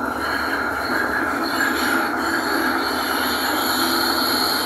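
Tram wheels squealing on the rails as the tram runs through a tunnel: high, steady tones that grow stronger about a second and a half in, over the rolling rumble of the car.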